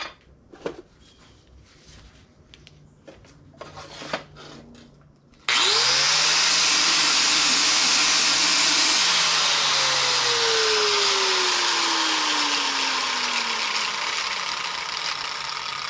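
A few light handling clicks and knocks, then about five seconds in a handheld power grinder starts suddenly and grinds loudly against steel sheet metal, trimming a fender patch to fit. Its motor pitch shoots up and then sinks slowly over the next ten seconds as it works.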